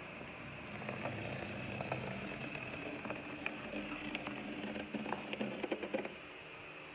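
Scribing dividers dragged along a bumpy textured drywall: rough scraping with many small clicks as the point catches on the texture, busiest just before it stops about six seconds in.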